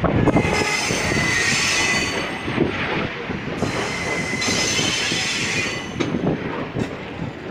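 Indian Railways sleeper coaches of the departing Saurashtra Janata Express rolling past at low speed, with a steady wheel-and-rail rumble, thin high wheel squeal that is strongest in the first few seconds, and occasional knocks of wheels over rail joints.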